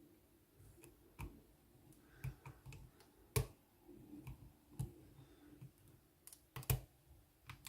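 Metal lock pick and top-of-keyway tension tool clicking in a Ruko pin-tumbler cylinder during single-pin picking, a reset and fresh attempt. Scattered, irregular small clicks and taps, two of them louder: one about halfway through and one near the end.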